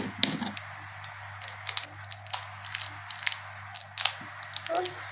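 Pink slime mixed with pearl beads being squeezed and worked by hand, giving irregular sharp clicks and small pops.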